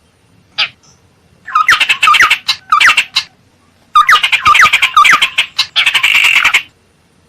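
Ciung air (tit-babbler) calling: a short single note, then two bursts of rapid harsh chattering mixed with quick upslurred whistles, the second burst longer. It is a lure call used to draw wild birds of the same kind closer.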